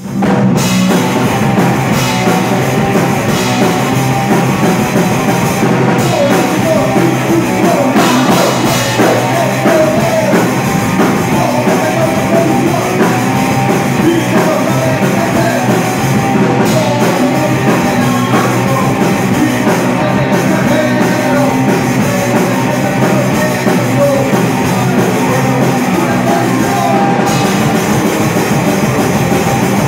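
Punk rock band playing live in a small rehearsal room: distorted electric guitars, bass and a drum kit with cymbals, with a singer's voice over them. The music starts abruptly right at the beginning and keeps up without a break.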